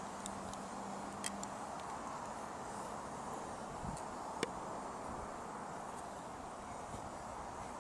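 Faint, steady outdoor background noise, with a few sharp clicks about a second in and about four and a half seconds in.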